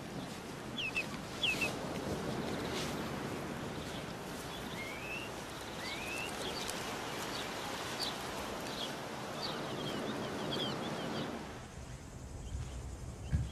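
Small birds chirping again and again over a steady outdoor background. About a second and a half before the end it drops to quieter room tone, with a soft low thump near the end.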